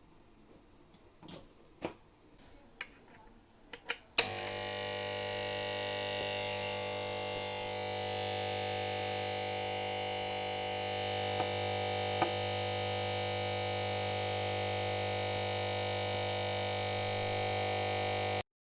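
Old mains power-supply transformer switched on with a sharp click about four seconds in, then giving a steady loud hum and buzz until it cuts off abruptly near the end. This hum is the fault that the repair, soaking the transformer in lacquer and baking it, is meant to cure. A few light clicks come before it is switched on.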